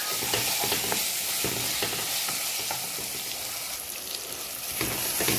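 Minced chicken kofta mixture with spices frying and sizzling in a pot, a steady hiss, while a wooden spatula stirs it with faint irregular strokes.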